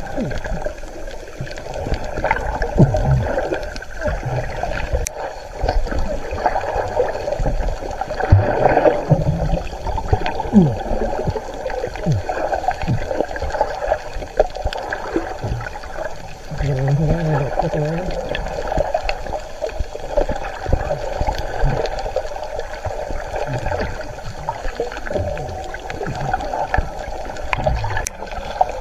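Underwater sound heard through a submerged camera: a diver's exhaled air bubbling and gurgling, with scattered clicks and knocks throughout.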